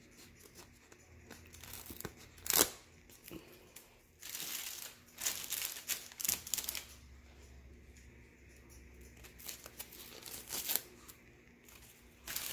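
Plastic wrapping and a rolled diamond-painting canvas crinkling and rustling in irregular bursts as a tightly packaged kit is unwrapped and unrolled. A sharp crackle about two and a half seconds in is the loudest moment.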